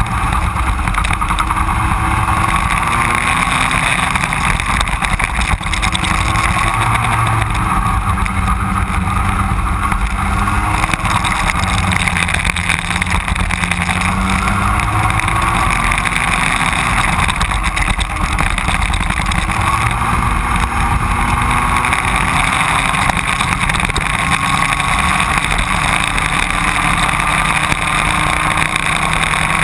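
Racing go-kart engine running hard through a lap, its pitch climbing and dropping again and again as it accelerates out of corners and lifts into them.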